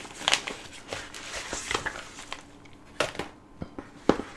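Rustling and crinkling of a padded mailer as a plastic component box is slid out of it, with a few sharp clacks from the plastic box being handled and set down, the loudest about three and four seconds in.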